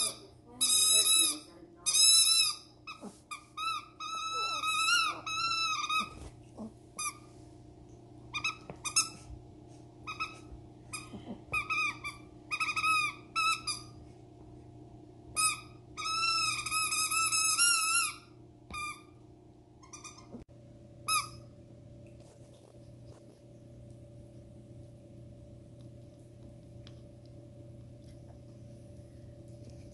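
A puppy chewing a blue rubber football-shaped squeaky toy, making it squeak in quick runs of short, high squeaks. The squeaking stops about two-thirds of the way through, leaving only a faint steady hum.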